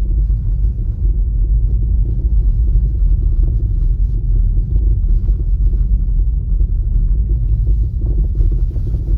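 Skoda Enyaq electric SUV on the move: a steady low rumble of road and tyre noise, with faint, irregular ticks scattered through it. This is the noise from the front of the car that the owner complains of and that the Skoda service says cannot be heard and does not come from anything loose.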